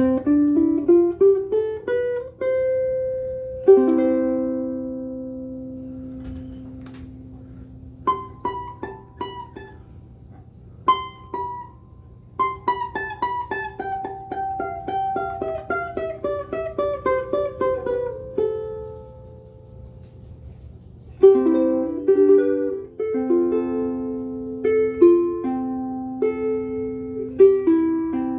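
Oli L2-CRR ukulele with a curly redwood top and rosewood body, strung with extremely high tension Worth Brown Fats fluorocarbon strings, played solo. It is fingerpicked in single notes and arpeggios, with a fast falling run of notes in the middle and a pause where the notes ring out, then picked chord patterns near the end.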